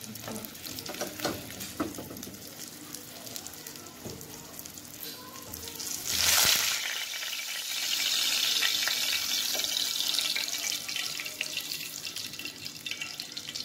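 Hot cooking oil sizzling and crackling in a frying pan as fried red snapper pieces are lifted out with a slotted spatula. About six seconds in the sizzle swells suddenly louder and stays loud as a steady hiss for a few seconds before easing.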